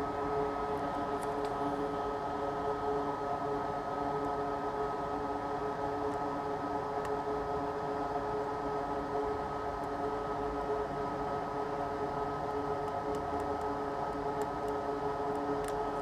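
Steady electric fan-motor hum with a few fixed whining tones on top, and a few faint light clicks near the end.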